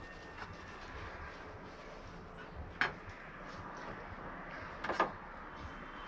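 Two short knocks about two seconds apart, from a plate being set down and a knife picked up at a wooden counter, over a steady faint hiss.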